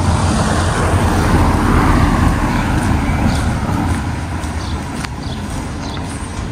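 A car passing by on the street: tyre and engine noise swelling to a peak about two seconds in, dropping in pitch as it goes past, then fading. Footsteps click faintly underneath.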